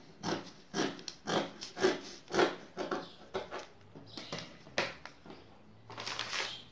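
Dressmaking scissors snipping through knit fabric, a quick run of cuts about two to three a second for the first three and a half seconds. A brief rustle of fabric being gathered up comes near the end.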